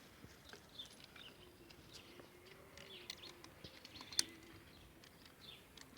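Faint chirping of small birds in scattered short calls, with a few light clicks and one sharper click about four seconds in.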